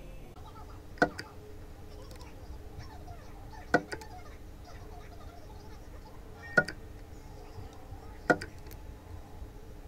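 Handheld battery spot welder firing on the nickel strip of a scooter battery pack: four sharp snaps, each with a small tick right after, spaced roughly two to three seconds apart as the strip is welded onto the replacement cells. A steady low hum runs underneath.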